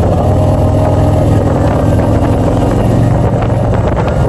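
Touring motorcycle's engine running steadily under way, heard from the pillion seat, with wind noise on the microphone.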